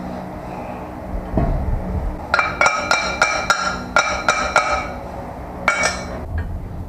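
Metal BMX handlebar parts knocking and clinking as they are worked apart by hand. A low knock comes about a second and a half in, then a quick, uneven run of ringing metallic clinks lasting about two and a half seconds, and one more near the end.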